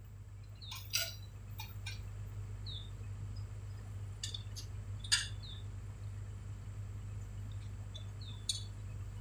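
Low steady hum of idling diesel heavy machinery, with a few sharp metallic clinks and brief high bird chirps.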